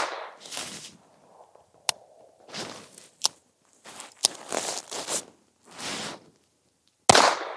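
Ruger Mark IV 22/45 Lite .22 LR pistol being handled: handling rustle and three sharp metallic clicks as the bolt is worked by hand to clear a malfunction, with the Aguila subsonic rounds failing to cycle the action. A single loud shot comes near the end.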